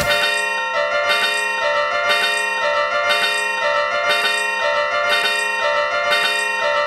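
Japanese level crossing warning bell ringing its 'kan-kan' alarm, alternating between two notes about twice a second. A sharp hit sounds right at the start.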